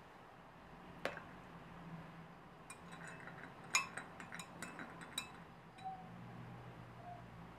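A metal teaspoon stirring tea in a china teacup, clinking against the cup's sides in a quick run of bright ringing taps over a couple of seconds. A single sharp clink comes about a second in.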